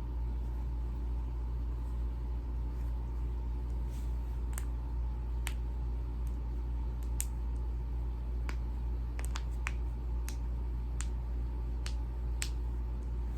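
Joints cracking and popping: about a dozen sharp, irregularly spaced cracks, some in quick clusters, starting about four seconds in, over a steady low hum.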